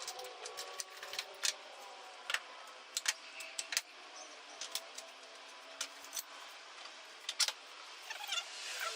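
Irregular light clicks and knocks of hand tools and parts being handled at a workbench, with no power tool running.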